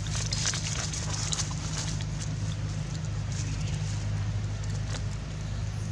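Dry leaf litter crackling and rustling in short irregular bursts as macaques move over it, thickest in the first couple of seconds, over a steady low hum.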